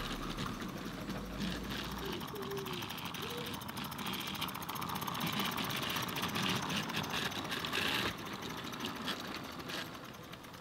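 A 16mm-scale live-steam model locomotive chuffing in a fast, even beat as it runs past hauling its train, fading as it moves away near the end.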